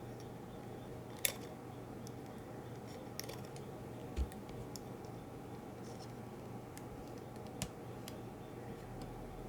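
Sparse, sharp clicks and a soft thud from printer parts being handled and fitted by hand, over a faint steady hum.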